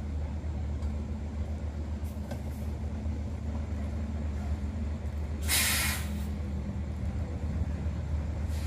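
Intercity coach's diesel engine running low and steady as the bus creeps away. A short, loud hiss of compressed air from its air brakes about five and a half seconds in.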